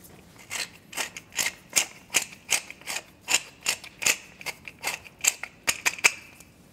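Hand-twisted pepper mill grinding black pepper, its mechanism clicking in a steady rhythm of about two to three clicks a second.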